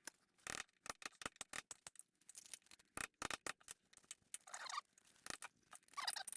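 Quiet, irregular small clicks and scrapes of hand tools working at a concrete slab around a toilet flange, with a brief squeak about four and a half seconds in and another near the end.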